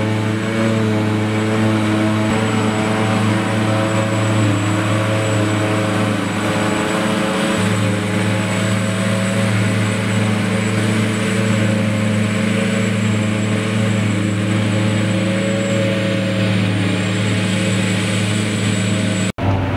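John Deere 8400i self-propelled forage harvester working under load as it chops grass: a steady, unchanging engine drone with a dense hiss of crop flow and a thin high whine over it. The sound cuts out suddenly just before the end.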